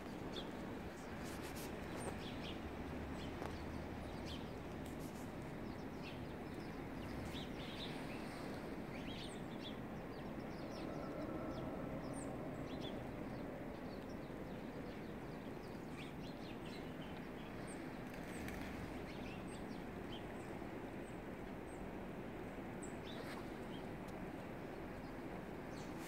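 Small wild birds chirping: scattered short, high call notes throughout, over a steady low background hiss.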